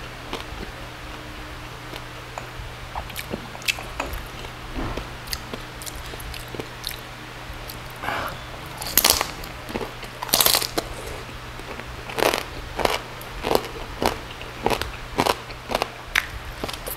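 Close-up biting and chewing of crispy roast pork belly crackling (lechon liempo): a few faint clicks at first, two loud crunches about halfway through, then crunchy chewing a bit under twice a second.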